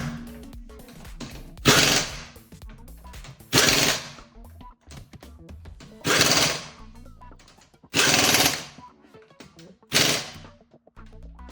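Impact wrench run in about five short rattling bursts, roughly two seconds apart, while nuts are driven home.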